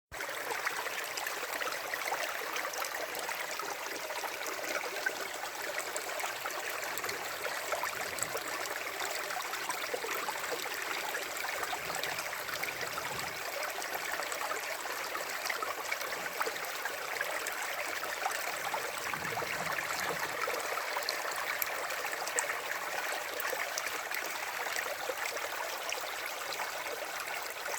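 A river or stream flowing over stones, a steady rush of water with fine gurgling and splashing.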